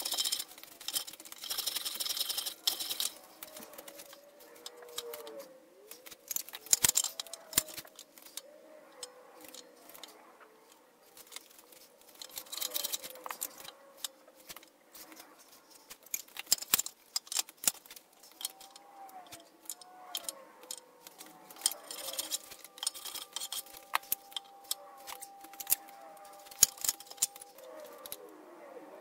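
Metal bench plane shaving the edge of a hardwood board in a few strokes, then scattered knocks and clicks as the wood and tools are handled.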